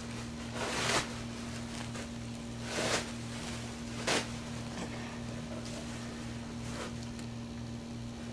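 Steady low hum with three short noisy swishes over it, about one, three and four seconds in; the first is the loudest.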